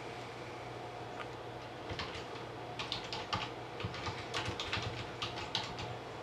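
Typing on a computer keyboard: quick runs of keystrokes starting about two seconds in, over a low steady hum.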